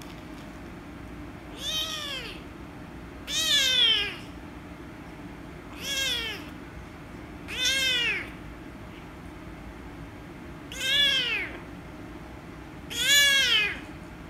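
Kitten meowing six times, each meow a short call that rises and then falls in pitch, over a steady background hum.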